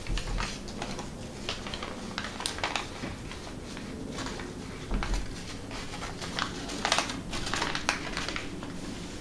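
Sheet of origami paper crinkling and rustling under the fingers as its creases are pinched into mountain and valley folds, with irregular sharp crackles. A dull low bump about five seconds in.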